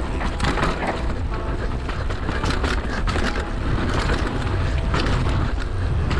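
Mountain bike rolling fast over a rough dirt trail: tyres crunching on gravel and the bike clattering over stones and roots, with wind rumbling on the camera microphone.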